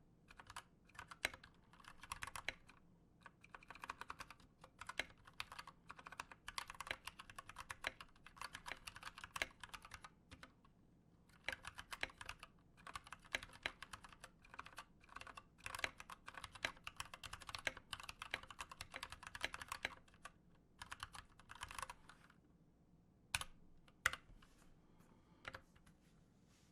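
Typing on an Anne Pro 2 60% mechanical keyboard with stock, unlubed Gateron Brown switches: runs of quick keystrokes broken by short pauses, with two louder single strokes near the end.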